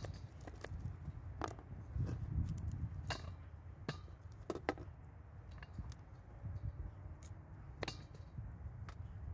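Kitchen knife slicing carrots on a plastic cutting board: irregular sharp taps of the blade striking the board, about one every second or so, over a low rumble.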